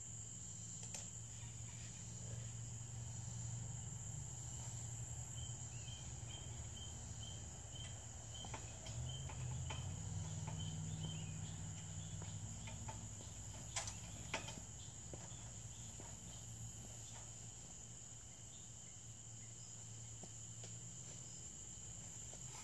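Steady high-pitched chorus of crickets and other insects, with a short run of evenly repeated chirps in the middle. A few sharp knocks come through, the loudest about two-thirds of the way in, as the steel ladder of the stand is climbed down.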